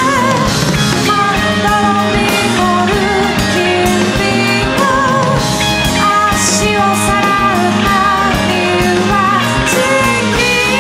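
Live rock band playing: a woman singing with vibrato over electric guitar, bass guitar and a drum kit.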